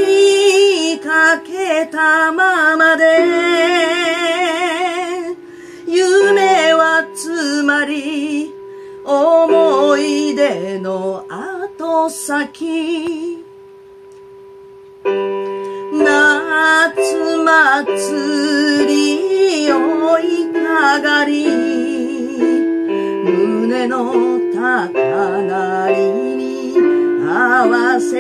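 A woman singing a slow melody with vibrato, accompanied by held chords on a roll-up electronic keyboard. Voice and keyboard pause briefly about halfway through, then go on.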